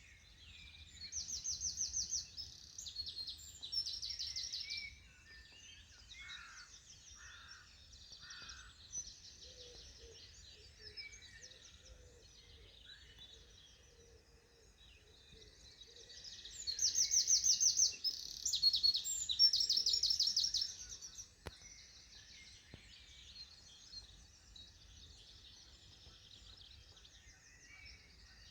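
Songbirds singing in a morning chorus: one bird twice delivers a loud, fast trill of rapidly repeated high notes, about a second in and again midway, while other birds chirp and call more softly throughout.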